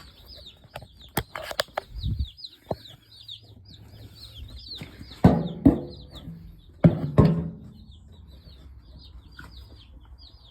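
Many Cornish Cross broiler chicks peeping continuously, a stream of quick high falling peeps. A few knocks and rustles break in, loudest in two bursts about five and seven seconds in.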